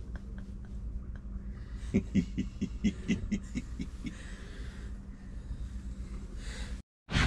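A golden retriever panting quickly for about a second and a half, near the middle, over the steady low hum of the boat's engine heard inside the cabin.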